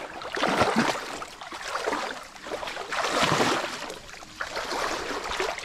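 A person wading through a flowing, flooded stream, water sloshing and splashing around the legs with each stride, loudest in two surges.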